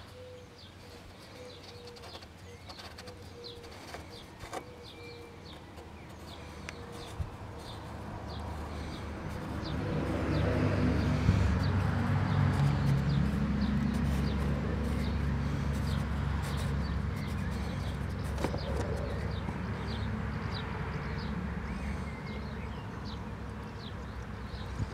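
Birds chirping in repeated short calls, with a low rumble that swells about ten seconds in and then holds. A few faint clicks come from hands turning the plastic oil filter housing cap.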